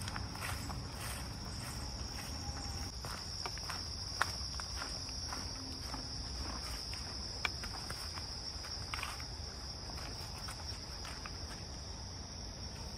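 A steady, high-pitched insect chorus, with footsteps and rustling as someone walks through grass and brush. Two sharp clicks stand out, about four seconds in and again a few seconds later.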